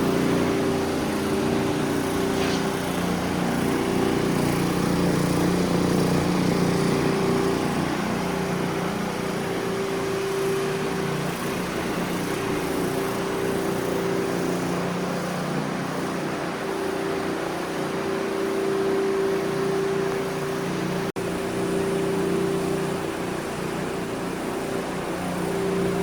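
Floor scrubbing machine running steadily with a motor hum as it works a haze-removing product into tile to lift the grout haze film.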